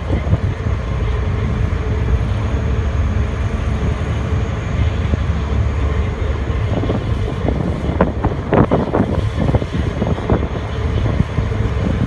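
Steady low rumble of a ferry under way, its engines and wind buffeting the microphone on deck, with a louder, rougher patch about eight seconds in.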